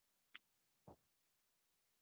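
Near silence, with two faint, very short sounds: one about a third of a second in and another about a second in.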